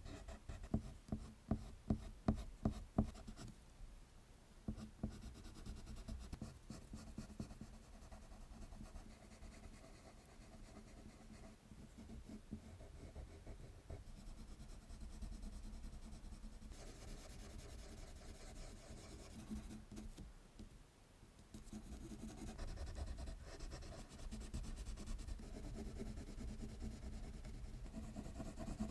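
Colored pencil scratching on drawing paper: a run of loud, quick strokes, about two a second, for the first three seconds, then quieter, steady shading strokes.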